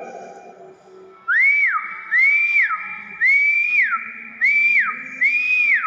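Nias hill myna giving a series of five loud whistles, each rising, holding briefly, then dropping, repeated evenly a little faster than one a second.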